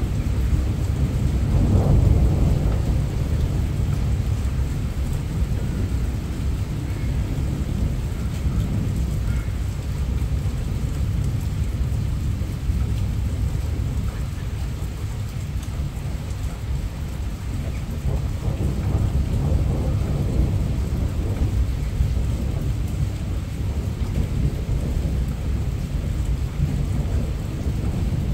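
Heavy rain with rolling thunder, picked up by a mobile phone's microphone. The low thunder rumble swells about two seconds in and again about two-thirds of the way through, under a steady hiss of rain.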